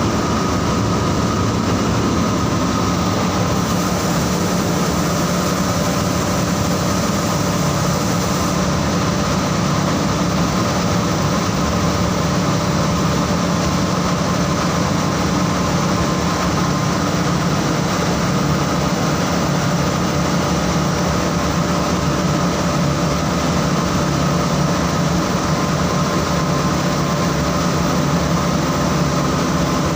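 Saurer JSC 330 carding machine running steadily: a continuous, unchanging mechanical hum with a few constant high tones over it.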